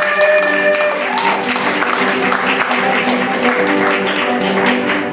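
A music cue plays with audience applause over it.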